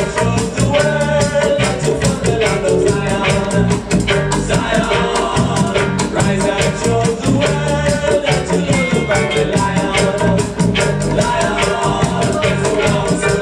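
Roots reggae record played loud through a sound system, with a heavy bassline and a steady beat.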